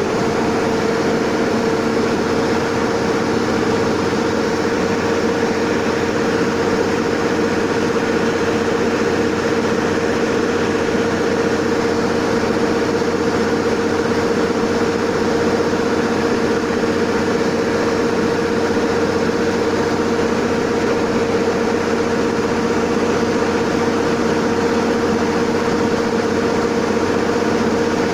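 Rice combine harvester running steadily, its engine and threshing machinery giving an even hum with a constant whine.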